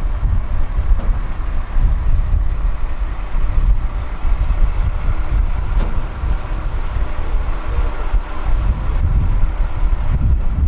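A sailboat's inboard engine running steadily while the boat motors along, heard as a continuous heavy low rumble whose loudness rises and falls.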